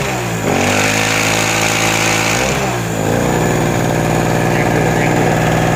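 Small two-stroke portable generator engine running: its speed dips and comes back up twice early on, then settles into steadier running.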